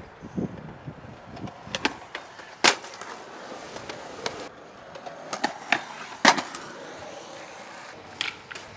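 Skateboard wheels rolling on concrete, broken by several sharp clacks of the board striking the ground; the loudest come about two and a half and six seconds in.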